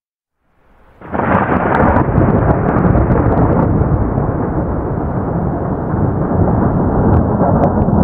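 Loud, steady rumble of thunder in a storm, starting abruptly about a second in out of dead silence.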